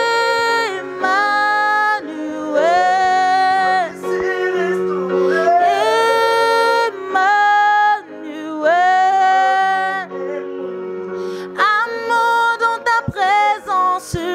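Woman singing a slow gospel worship song in long held notes with vibrato, accompanied by sustained chords on an electronic keyboard.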